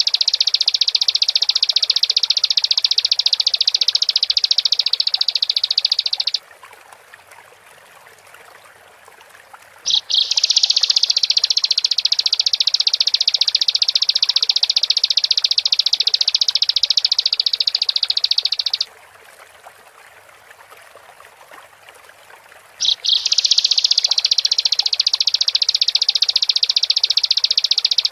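Bar-winged prinia (ciblek) singing in long, fast, high-pitched chattering bouts lasting several seconds each. The song breaks off twice for pauses of about four seconds.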